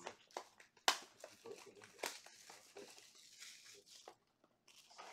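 Cardboard trading-card blaster box being handled and opened by hand: a few sharp clicks of cardboard and packaging, the loudest about one and two seconds in, with light rustling between.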